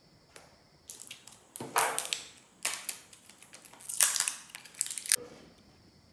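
Crinkling and clicking handling noises, like paper or plastic food packaging being moved and opened, in irregular bursts with the loudest crackles about two seconds in and again about four seconds in.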